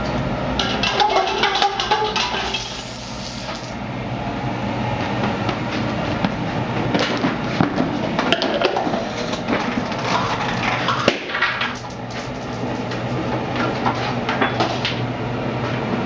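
A homemade Rube Goldberg chain-reaction machine running through its stages: an irregular string of small clicks, clatters and knocks from plastic, wood and metal parts, over a steady low hum.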